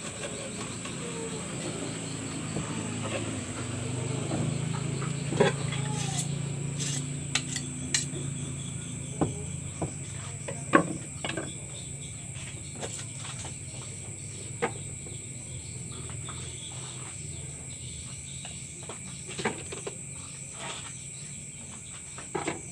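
Crickets or other insects chirring steadily at a high pitch, with a scattering of short clinks and clicks like utensils on dishes, and a low murmur in the first half.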